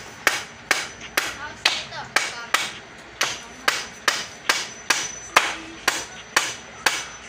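Hammer striking a wooden chair frame in a steady rhythm, about two sharp blows a second, driving it tight to firm up a wobbly joint.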